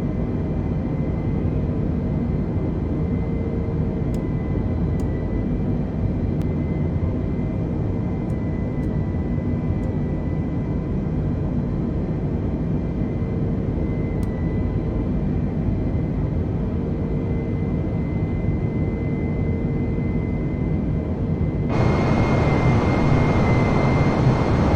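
Airbus A320 on approach: steady jet engine and airflow noise with a thin steady high whine. Near the end the rushing noise suddenly grows louder and stays up.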